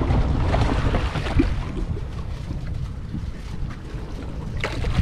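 Wind noise on the microphone over water sloshing and splashing against the side of a boat. A few short sharp splashes or knocks come in the first second and a half and again just before the end.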